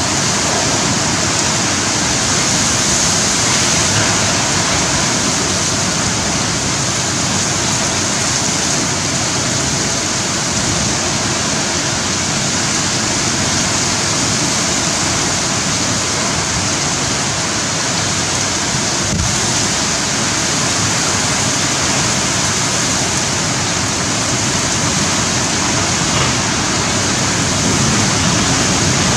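Very heavy rain and storm-force wind of a super cyclone: a loud, steady rushing noise.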